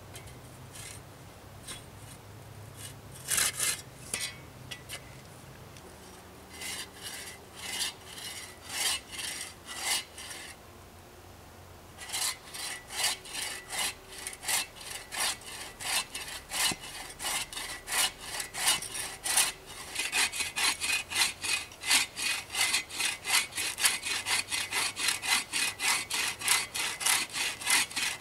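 Hand saw cutting through a wooden post with back-and-forth strokes. A few scattered strokes come first, then regular sawing, a short pause about ten seconds in, and steady, quicker sawing to the end.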